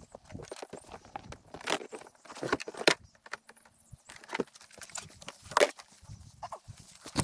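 Irregular clicks, knocks and light rattles of an echo sounder and its fittings being handled and unclipped on an inflatable boat, with two louder knocks, one about three seconds in and one at five and a half seconds.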